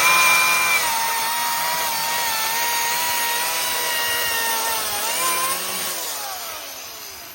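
Chainsaw running at full speed while cutting tree branches, holding a steady high pitch. About five seconds in it dips and picks up again briefly, then the pitch falls and it winds down near the end.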